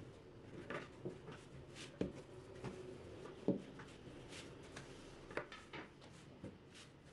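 Rolling pin working stiff manti dough on a board: soft rubbing with scattered light knocks, the loudest about three and a half seconds in.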